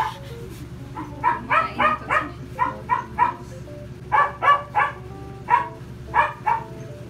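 A dog barking repeatedly, about a dozen short barks in quick runs of two to four, starting about a second in.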